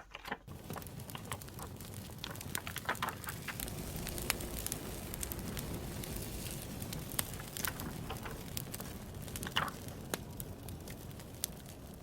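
Campfire crackling, with irregular sharp pops over a steady hiss.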